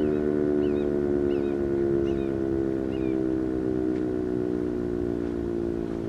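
Sentry 3V8-H outdoor warning siren winding down after a short test alert: a steady multi-note wail whose pitch slowly sinks while it fades a little.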